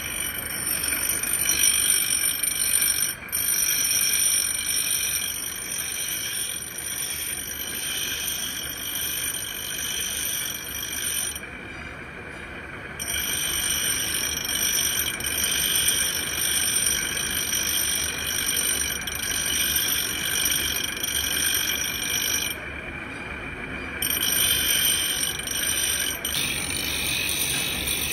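Motor-driven grinding wheel grinding the teeth of a gear-cutting hob: a steady high-pitched grinding whine. The highest part of the whine drops away briefly twice, once near the middle and again about three-quarters through.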